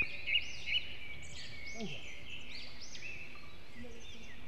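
A chorus of birds calling at once: many short, arching chirps repeated and overlapping.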